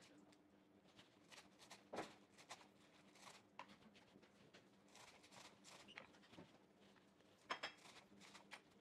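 Faint, scattered taps of a kitchen knife on a wooden cutting board as a bunch of leafy greens is sliced, with a sharper tap about two seconds in and a quick run of taps near the end.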